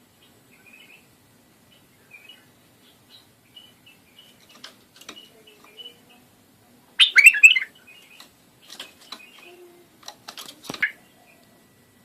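Iraqi bulbul (white-eared bulbul) singing. Soft scattered chirps are followed by a loud burst of song about seven seconds in, then shorter loud phrases near the end.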